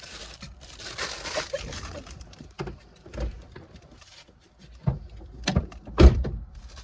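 Rustling, then a run of knocks and thumps inside a car as people move out of and into the seats, the loudest thump about six seconds in.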